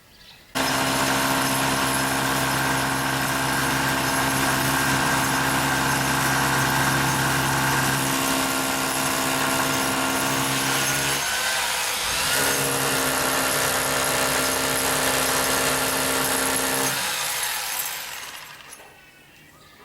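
A power tool running steadily with a whining motor. It starts abruptly, dips and changes pitch briefly around the middle, then winds down near the end.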